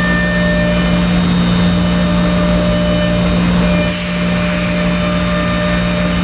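Thermwood M-90 five-axis CNC router spindle running and cutting MDF, a loud, steady machine hum with a constant whine over it. About four seconds in, a brief hiss and a short dip in loudness come as the head lifts out of the cut and swings to a new angle.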